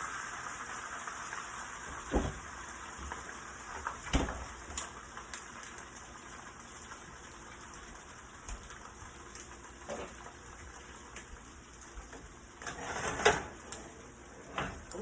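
Beaten eggs sizzling steadily in a frying pan, with a few sharp knocks about two seconds in, four seconds in, and near the end.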